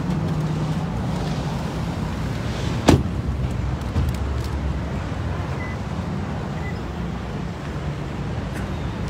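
A car door shut with a single sharp thump about three seconds in, over a steady low rumble.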